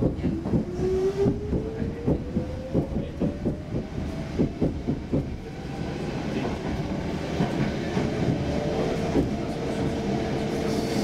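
Stockholm Metro C6 train accelerating away from a station, heard from inside the car: a whine rises in pitch over the first six seconds while the wheels clack over rail joints. The whine then levels off into a steady running sound.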